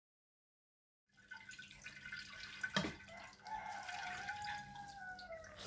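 Liquid trickling and dripping through a cloth strainer bag, with a single knock partway through. Over it a long drawn tone lasts about two seconds and slides down in pitch at the end.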